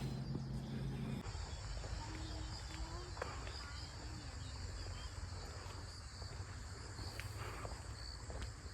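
Insects chirring steadily at two high pitches. A low steady hum cuts off about a second in.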